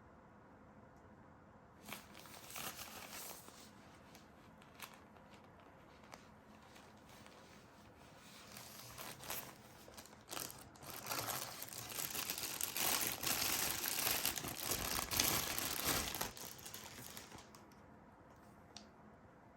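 Packaging being unwrapped by hand: crinkling and rustling with some tearing, in short bursts at first and then a longer, louder stretch of crumpling in the second half that stops a couple of seconds before the end.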